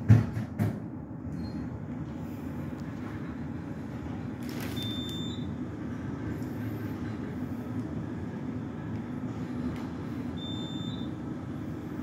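Steady low rumble of a light rail train running, with a couple of sharp knocks right at the start. Two short high beeps sound, about five seconds in and again near the end.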